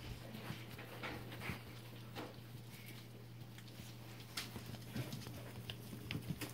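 Small Pomeranian–Yorkie cross puppies moving about and being handled: scattered soft taps and scratches of paws and hands on the pad and pen floor, with a few short higher sounds, over a steady low hum.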